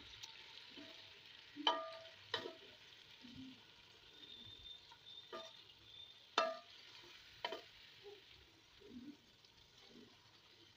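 Wooden spatula stirring beef in a thick masala in a coated pot, knocking against the pot about five times over a light, steady sizzle of frying.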